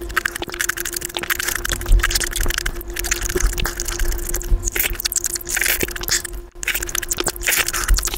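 Sped-up mouth sounds of eating juicy fruit: a rapid, dense stream of wet chewing, squishing and smacking as green grapes are chewed and a ripe peach is bitten into near the end, all played back at five times speed. A steady faint hum runs underneath.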